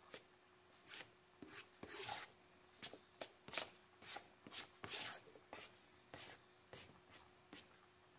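Knife blade scraping and tapping across a plastic cutting board as chopped chicken is pushed off it into a pot, in irregular strokes about one or two a second.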